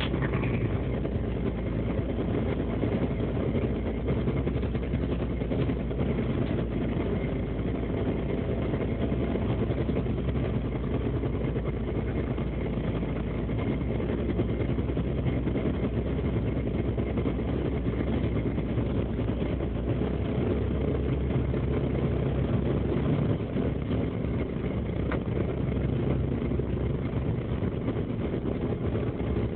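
A fishing boat's engine and deck machinery run in a steady drone while the longline is hauled, with a faint thin whine held above it.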